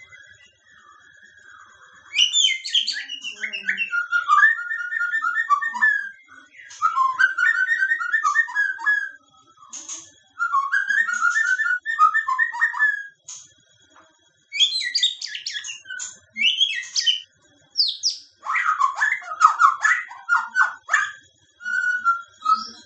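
White-rumped shama (murai batu) singing. From about two seconds in it gives a run of varied phrases of rapid whistled and chattering notes, each a second or two long, with short pauses between them.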